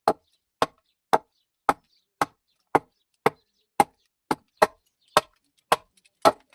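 Repeated sharp blows striking wood, evenly spaced at about two a second, a woodworking tool such as a mallet, hammer or chisel driven into the wood.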